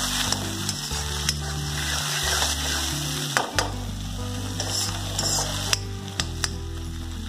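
Onions and tomatoes sizzling in hot oil in a metal kadhai, stirred with a steel ladle that clacks and scrapes against the pan a few times, around three and a half seconds in and again near six seconds.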